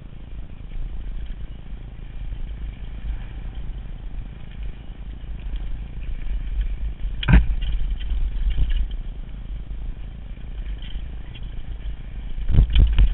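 Downhill mountain bike rolling fast down a dirt trail, heard from a rider-mounted camera: a steady low rumble of wind on the microphone, with the bike's chain and frame clattering over bumps. A sharp knock about seven seconds in and a run of hard knocks near the end, as the bike hits rougher ground.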